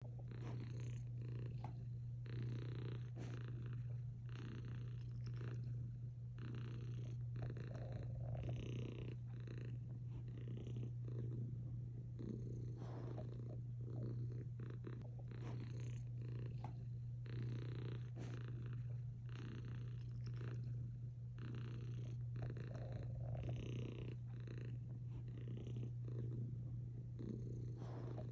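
Domestic cat purring steadily, swelling and easing about once a second with its breaths.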